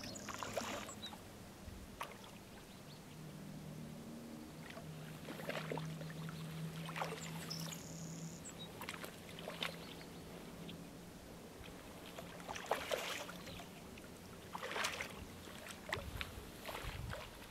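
Water splashing and sloshing in irregular bursts as a hooked rainbow trout thrashes at the surface while being brought to the net. A faint low steady hum sits underneath for several seconds in the middle.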